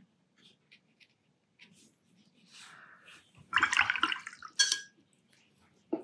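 Paintbrush swished in a water jar, a short watery swishing, followed by a sharp tap with a brief ring, as of the brush knocked against the jar's rim.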